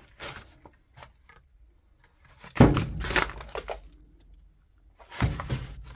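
Scattered knocks and crunching handling noises from items and debris being moved about. A louder thump comes about two and a half seconds in, and another cluster of knocks comes near the end.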